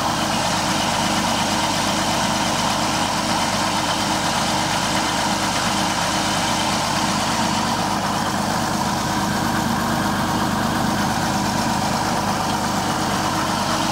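Case 930 tractor's six-cylinder diesel engine idling steadily.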